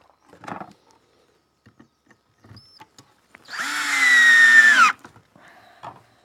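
Cordless drill driving a wood screw into a 2x4: one motor whine of about a second and a half, starting about three and a half seconds in. Its pitch sinks slowly, then drops sharply as it stops. A few light knocks of handling come before it.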